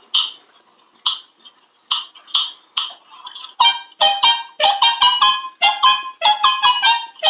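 A few sharp, quickly fading taps, then a trumpet playing a quick run of short, detached high notes from about three and a half seconds in.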